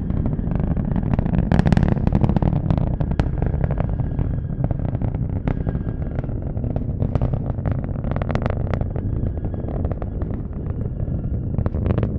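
Falcon 9 rocket's first stage, nine Merlin kerosene engines, climbing after liftoff and heard from the ground: a steady deep rumble full of crackling.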